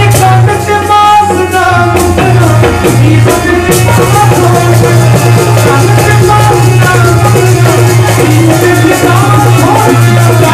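Punjabi devotional singing (a dharna) by a male voice, with harmonium accompaniment and rattling percussion keeping a steady beat.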